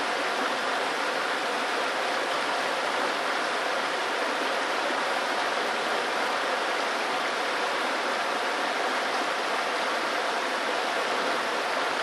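Small river after recent rains, its water rushing over rocks in shallow riffles: a steady, even rush with no other events.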